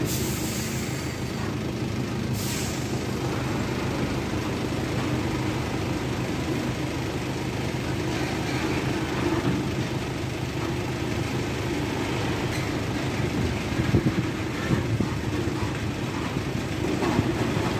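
Diesel engine of a container tractor-trailer running steadily at low speed as the 40-foot container rig maneuvers past close by. Two short hisses of air from the air brakes near the start, and a few sharp knocks from the rig about fourteen seconds in.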